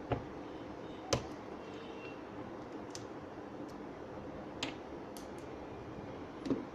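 About five sharp clicks and light knocks at irregular intervals, over a steady background hiss.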